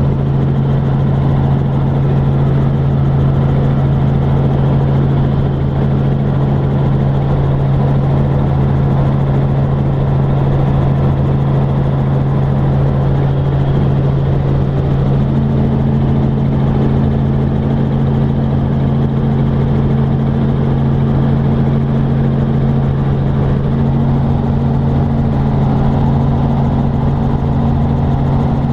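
Helicopter engine and rotor drone heard from inside the cabin in level flight: a loud, steady low hum over dense noise, with the upper hum shifting slightly in pitch about halfway through.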